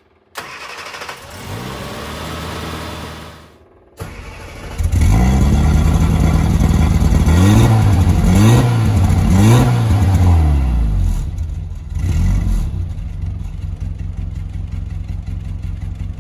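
Austin Mini Countryman's A-series four-cylinder engine on a cold start: it cranks, catches about five seconds in, is revved up and down three times, then settles to a steady idle.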